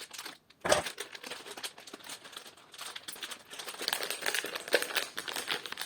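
Plastic packaging being handled and pulled open, crackling and rustling in quick irregular clicks, with one sharper crackle under a second in.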